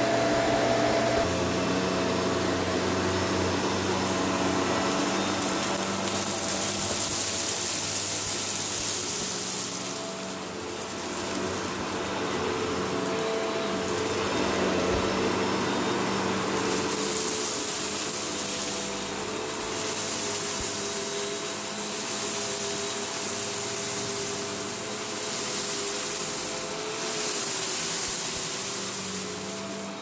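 Shark Rotator Powered Lift-Away upright vacuum running over carpet and sucking up crushed stale tostada shell crumbs. A steady motor hum runs under a rattling hiss of crumbs that swells and fades as the head passes back and forth over the pile.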